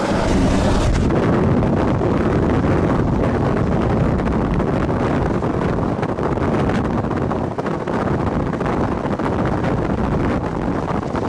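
Steady rush of wind through an open back window of a car at road speed, with road noise underneath.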